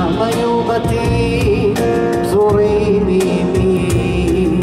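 Live band music: a stage piano and an upright double bass playing, with a voice singing a held, wavering melody over them.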